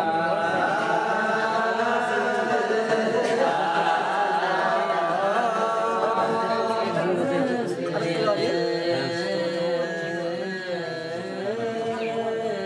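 Several voices chanting together in long, wavering held notes: Ethiopian Orthodox liturgical chant.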